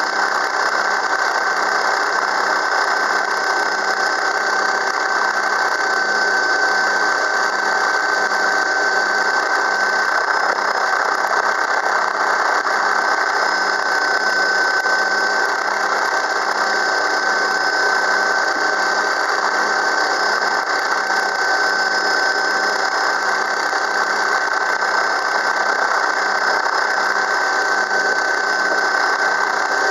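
Helicopter running steadily in flight, heard from inside the cabin: a constant engine whine made of several high tones over a steady rushing drone.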